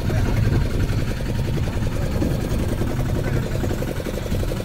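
Fishing boat's diesel engine idling steadily with a low, even running note.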